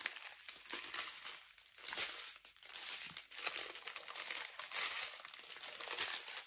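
Strips of small plastic bags holding resin diamond-painting drills crinkling and rustling as they are handled and spread out by hand.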